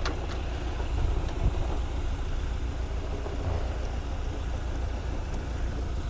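A vehicle engine running steadily, a low even rumble, with a few faint light clicks over it.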